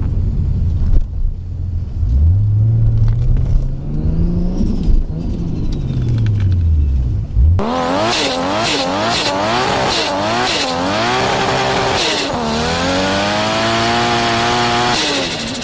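Turbocharged car engines revving in two clips. In the first, the engine revs up once and falls back. In the second, the engine is blipped quickly several times with sharp chattering between the blips, typical of turbo flutter, then revs up in one long climb.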